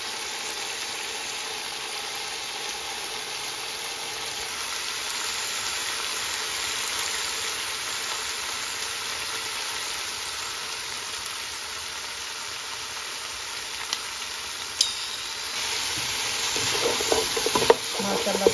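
Beef trotter pieces sizzling in spiced masala in a pot, a steady frying hiss as the meat is browned (bhunai). Near the end a wooden spatula stirs and scrapes the pieces, louder and more uneven.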